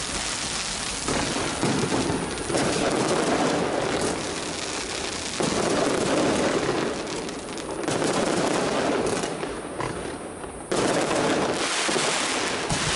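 Strings of firecrackers crackling in a dense, continuous barrage of rapid pops, swelling afresh several times as new strings go off.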